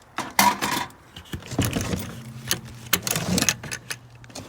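Metal parts and tools clinking and rattling as they are handled, in a string of short clicks. A low steady hum comes in about a second and a half in.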